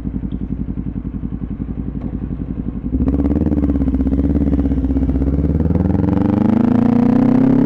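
Motorcycle engine idling with an even pulsing beat, then about three seconds in it picks up and the bike pulls away, the engine note climbing steadily as it accelerates.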